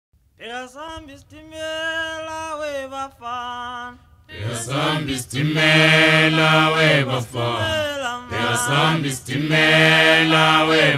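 Background music, an a cappella vocal chant: a single voice sings a few held notes, then about four seconds in a group of voices joins in, fuller and louder.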